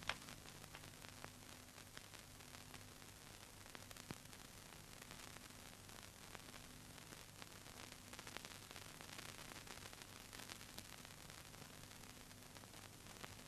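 Near silence: a faint steady hiss with a low hum, broken by a few faint clicks.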